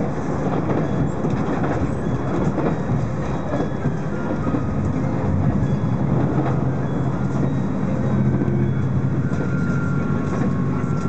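Inside a JR Shikoku Shiokaze limited express train running at speed: a steady rumble of wheels on rail. A faint high whine appears in the last few seconds.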